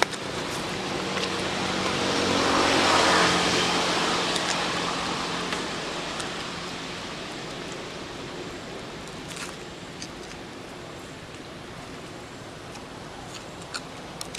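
A motor vehicle passing by: its engine and road noise swell to a peak about three seconds in, then fade away slowly, leaving a steady outdoor background with a few light clicks later on.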